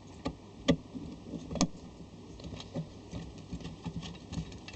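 Small hard parts such as screws and lamp-holder pieces clicking and clattering as they are handled and moved about. Three sharper clicks come in the first second and a half, followed by lighter scattered ticks.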